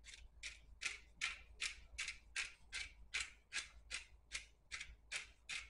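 Hand-twisted pepper grinder grinding peppercorns in a steady rhythm of short crunching strokes, about two to three a second.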